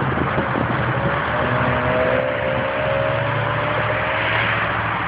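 A Chevrolet Camaro driving off down the road, its engine running steadily over road and traffic noise, with a faint rising whine in the middle.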